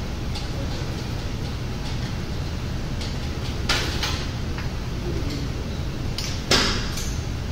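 Steady low hum of gym room noise, broken by two short sharp noises from the cable machine being handled between sets, about three and a half and six and a half seconds in, the second the louder.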